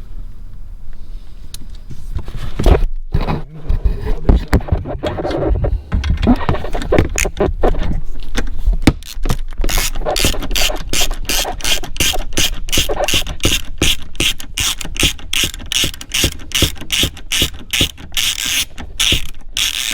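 Ratchet wrench with a 10 mm socket working a nut loose by the steering column. Scattered knocks and scraping come first, then from about halfway a run of quick, even ratcheting clicks.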